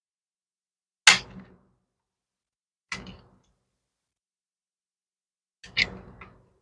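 Three short knocks and clicks of parts being handled on a workbench, the first the loudest, about a second in, a fainter one near three seconds and a double click near the end, with silence between.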